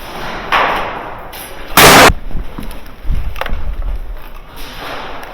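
A single very loud, sharp bang about two seconds in, lasting about a third of a second and clipping the recording, among quieter rustling of movement.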